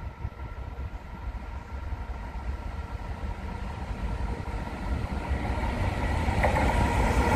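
Three NR-class diesel-electric freight locomotives approaching. A low engine rumble with a steady high whine grows steadily louder as they near.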